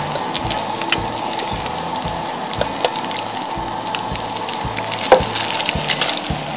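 Walleye fillets frying in olive oil in a cast-iron skillet on a propane camp stove: a steady sizzle, broken by several sharp clinks of a metal fork against an enamel bowl of batter, the loudest about five seconds in.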